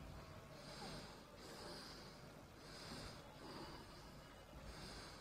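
Faint, close breathing: soft hisses that come and go about every second, in pairs like breaths in and out, over a low room hum.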